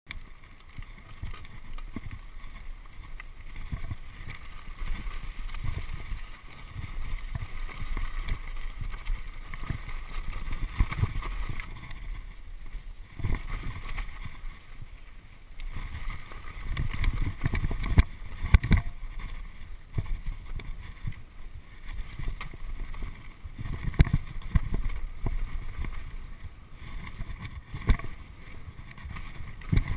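Old Specialized FSR full-suspension mountain bike ridden fast down a dirt trail: wind rushing over the microphone, tyres rumbling on the dirt, and the bike rattling, with sharp knocks over bumps, several of them louder.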